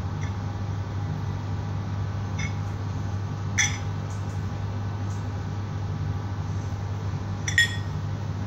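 Hard-boiled egg halves being set into a ceramic bowl. There is a faint tick or two, then two sharp ringing clinks of china, about three and a half and seven and a half seconds in, over a steady low hum.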